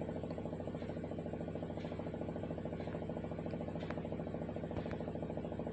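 A steady machine hum with a fine rapid pulse, and a few faint clicks.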